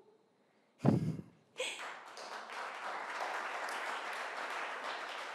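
Audience applauding: a steady clatter of many hands that starts about a second and a half in. Just before it, near the one-second mark, comes a brief loud burst of sound.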